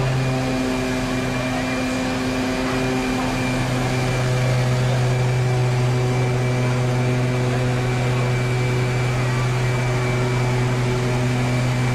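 Water cannon pumping: a steady droning hum over the hiss of the water jet and falling spray. It gets a little louder about four seconds in.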